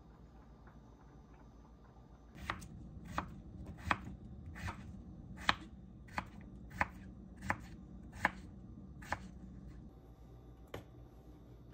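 Kitchen knife chopping on a bamboo cutting board: about ten crisp, evenly paced knocks, roughly one and a half a second, starting a couple of seconds in, with one more lighter knock near the end.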